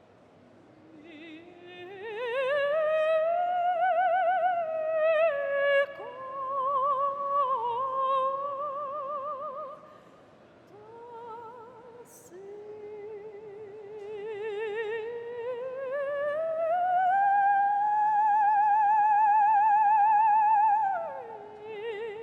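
Solo operatic singing: one high voice with wide vibrato, holding long notes and sliding slowly up in pitch, climbing to a sustained high note that falls away near the end.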